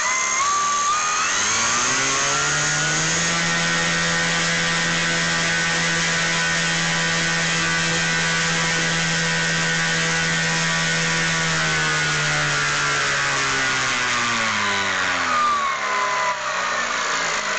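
Scorpion 5535-160 brushless electric motor spinning a 24x12 wooden propeller on 10S batteries in a thrust test. The motor whine and the propeller noise climb in pitch over the first few seconds. They hold steady, then fall away as the motor spools down over the last few seconds.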